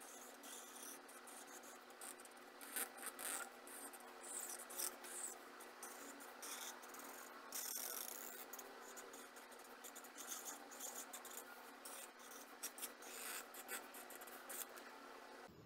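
Black marker drawing over lines on sketchbook paper: a run of short, irregular strokes of the tip on the paper, faint, over a steady low hum.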